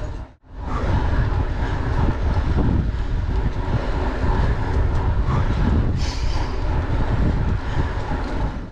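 Wind buffeting the microphone of a camera riding on a mountain bike at speed, with tyre rumble on asphalt: a loud, steady, low rushing noise. It cuts out for a moment about half a second in.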